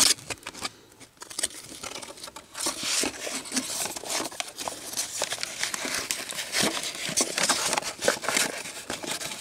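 Crinkling and rustling of card packaging and cardboard as a stack of baseball cards and wrapped packs is pulled out of a box. It is faint at first and then a steady crackly rustle from about two seconds in.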